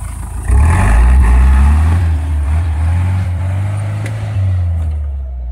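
Toyota Land Cruiser 4x4 engine revving up about half a second in and running hard under load as the jeep climbs an embankment off-road. The engine eases off slightly near the end.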